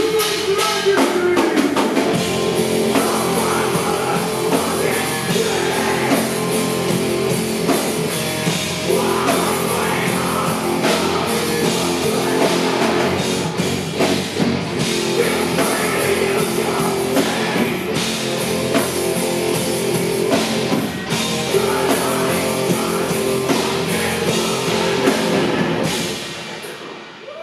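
Industrial metal band playing live: pounding drums, guitar and vocals. The music drops away sharply near the end.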